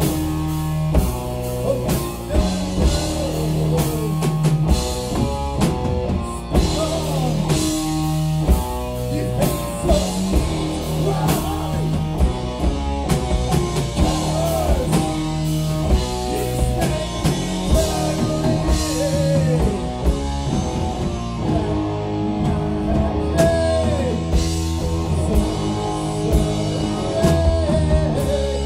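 Heavy metal band playing live: distorted electric guitars over a pounding drum kit.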